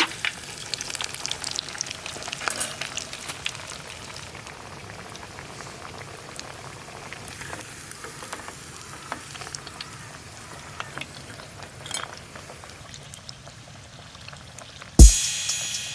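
Food cooking in a pot or pan over heat, a steady bubbling sizzle with many small crackles. A loud sharp knock near the end.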